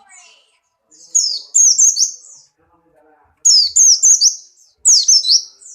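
A Buxtoni white-eye (pleci) in breeding condition singing in three quick bursts of high, down-slurred chirps, a few notes each.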